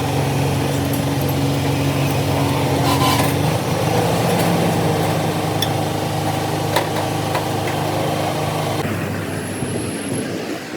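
Truck engine running steadily, its pitch shifting slightly about a third of the way in, with a few faint clicks.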